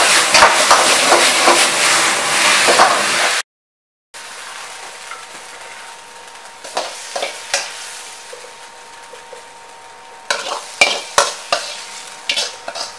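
Beef ho fun sizzling in a very hot wok over a gas burner while a metal ladle stirs and tosses it, loud and dense for about three and a half seconds, then cutting off. After that, a faint steady hum with scattered clinks and scrapes of the ladle against the wok as the noodles are scooped out onto a plate, thickest near the end.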